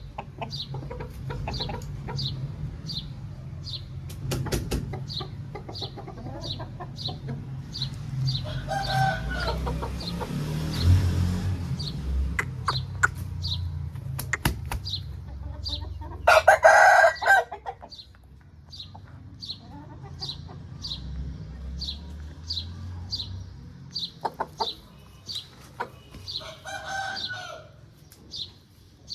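Aseel roosters calling: one loud crow about halfway through, with softer calls before and after. A high chirp repeats evenly throughout over a low background rumble.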